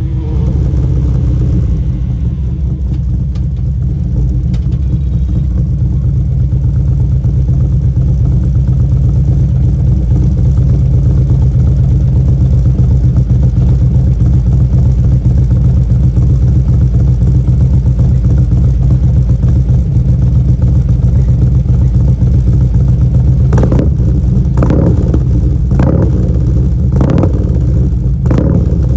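2016 Harley-Davidson CVO Street Glide's Twin Cam 110 V-twin idling steadily through a Vance & Hines Power Duals header and CFR slip-on mufflers, just settling after a rev. Near the end about five short sharp cracks come roughly once a second.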